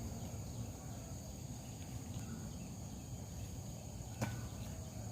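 Steady high-pitched chirring of insects, typical of crickets, over a low background rumble, with a single sharp click about four seconds in.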